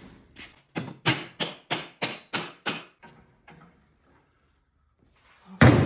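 A quick series of about seven sharp hammer blows on metal, roughly three a second, each ringing briefly, then after a pause one much louder blow near the end.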